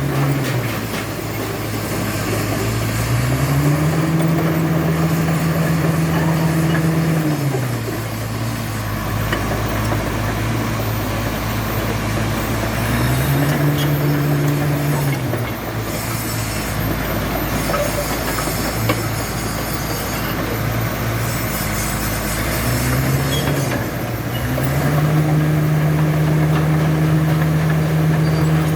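Komatsu bulldozer's diesel engine running, its pitch stepping up to a higher speed and dropping back several times, then held high near the end.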